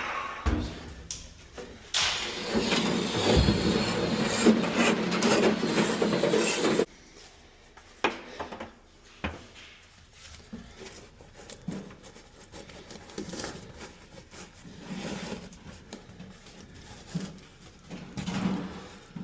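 A power tool runs loudly, stops briefly near the start with a thump, then runs again for about five seconds and cuts off suddenly. After that come quieter scattered knocks and clatter of handling.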